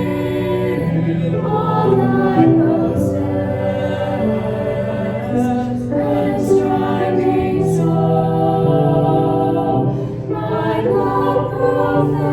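Choir singing a slow hymn in long, sustained notes.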